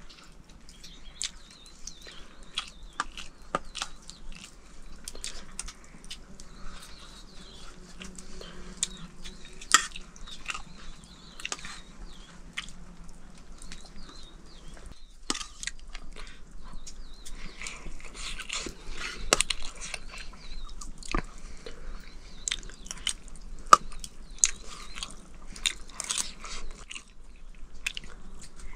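Someone eating, chewing and crunching close up, with many sharp irregular clicks.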